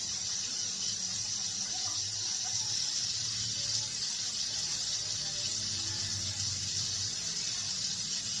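Steady rain falling, an even hiss with no break, over a faint low hum.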